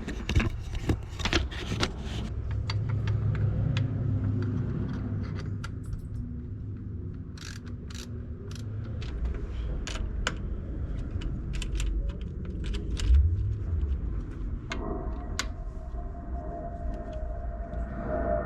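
Light metallic clicks and clinks of hand tools on the motorcycle grip hardware as it is fitted and tightened, over a low rumble. A steady hum comes in about fifteen seconds in.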